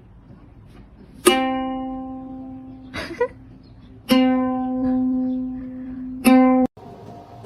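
Three single plucked-string notes at the same pitch, each struck sharply and left ringing as it fades; the third is cut off abruptly. A short faint sound falls between the first and second notes.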